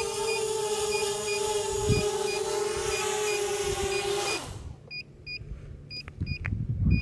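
Blackout clone FPV quadcopter's motors and propellers hovering with a steady high whine. About two-thirds of the way through the pitch drops and the motors cut off as it lands. Short electronic beeps then repeat over the quieter ending.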